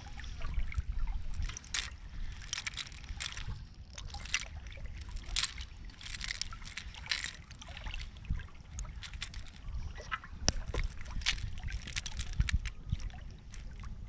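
Irregular clicks and rustles of a cast net being pulled and picked over by hand, its catch of small snails clattering against each other, over a steady low rumble.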